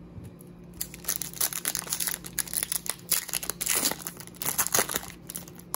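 Foil wrapper of an Upper Deck hockey card pack crinkling and tearing as it is pulled open by hand, starting about a second in with a dense run of crackles.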